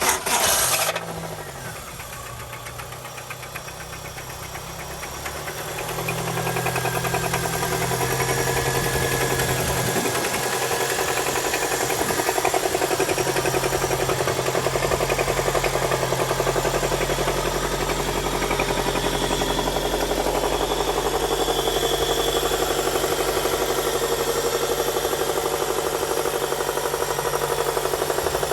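Toyota 2ZZ-GE 1.8-litre inline-four running with a fast, even knocking. It grows louder about five seconds in, then holds steady. The owner thinks it sounds like rod knock but is not sure.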